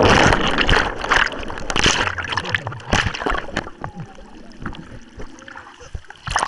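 Sea water splashing and rushing over a waterproof camera riding on a towed banana boat: loud at first, then dropping to broken splashes and knocks.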